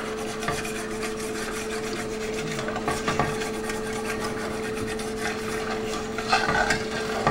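A utensil scraping and rubbing the browned bits off the bottom of a stainless-steel sauté pan in white wine, deglazing the pan. A steady low hum runs underneath.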